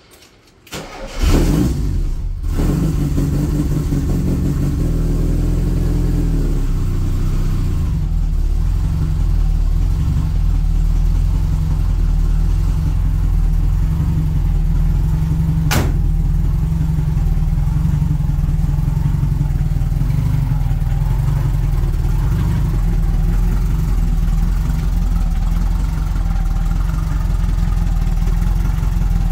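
A 1978 Volkswagen bus's air-cooled flat-four on a cold start after sitting a week: brief cranking on the starter about a second in, catching at once, then idling steadily. A single sharp click about halfway through.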